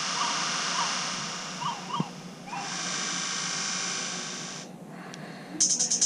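LG VX6100 flip phone's 'rainforest' ringtone playing through its small speaker: a steady hiss of forest ambience with short chirping calls, heard in two stretches with a sharp click about two seconds in. Just before the end it gives way to the phone's 'train' ringtone, a fast rhythmic pulsing.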